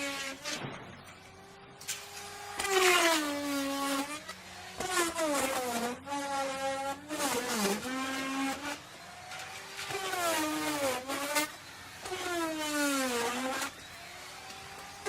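Electric wood router cutting wood in repeated passes, about five in all. With each pass the motor's pitch sinks as the bit takes load, then climbs back as the load comes off.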